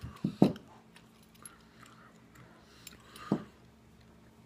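A few light clicks and knocks from small metal rifle parts being handled: an AR-15 gas tube and A2 front sight gas block. Two come close together just after the start and one more about three seconds in.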